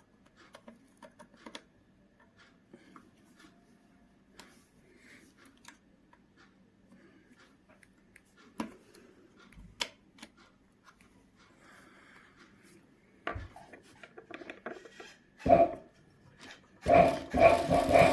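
A screwdriver working screws on a sewing machine: scattered light metallic clicks and taps, with a sharper knock shortly before the end. Near the end a much louder continuous sound begins.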